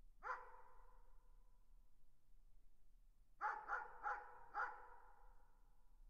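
A dog barking in the distance: one bark, then a quick run of four barks about three and a half seconds in. Each bark trails off in a long echo.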